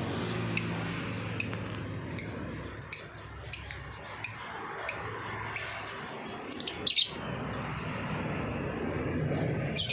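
Lovebird chirping in short, sharp, high notes about once every second, with a louder quick flurry of chirps about seven seconds in.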